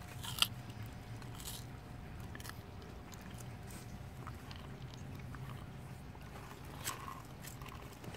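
Sulcata tortoise biting and crunching raw lettuce, green bell pepper and carrot, with scattered crisp crunches; the loudest comes about half a second in and another near the end.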